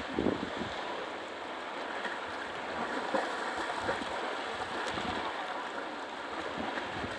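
Rough sea surf washing and breaking steadily, with gusts of wind buffeting the microphone.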